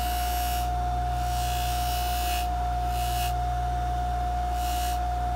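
Bench polishing motor running steadily with a hum and a constant whine. A silver ring is pressed against the spinning buffing wheel in about four short bursts of hissing friction as its sides are polished.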